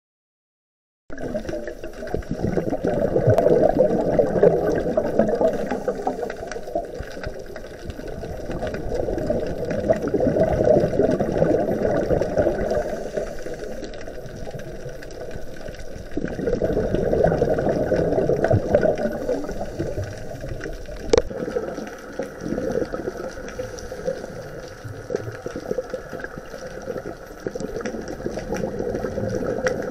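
A scuba diver's exhaled bubbles from the regulator, bubbling underwater. The sound swells and fades in waves every six or seven seconds with the breathing and starts about a second in. There is one sharp click about two-thirds of the way through.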